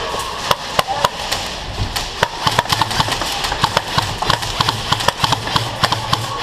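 Airsoft guns firing in a skirmish: irregular sharp pops and cracks, several a second. A low steady hum comes in about two seconds in.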